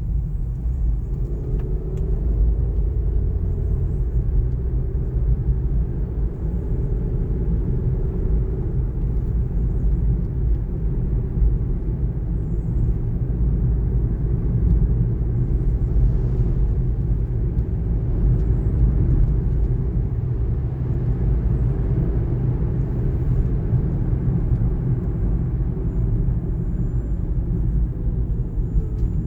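2019 Kia Niro being driven: steady road and drivetrain rumble with a faint whine running through it. A faint, thin high-pitched tone comes in near the end.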